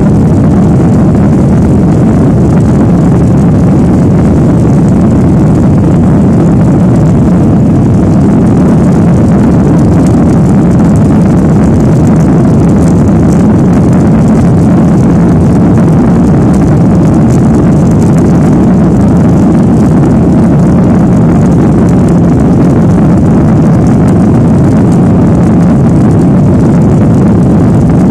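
Boeing 737 airliner's jet engines during the takeoff, heard from inside the passenger cabin as a steady, loud, deep rumble.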